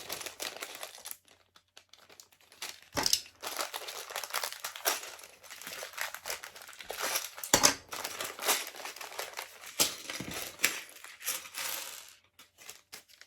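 Plastic bag of LEGO pieces being crinkled and torn open by hand, with a few sharp clicks along the way.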